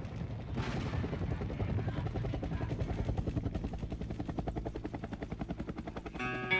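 A short sharp burst about half a second in, then a helicopter's rotor beating fast and evenly, slowly growing fainter. Guitar music comes in near the end.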